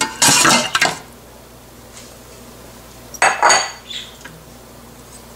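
Raw goat meat pieces sliding out of a glass bowl and dropping into an empty aluminium pressure-cooker pot, followed about three seconds in by a short clink with a brief ring, glass against the metal pot.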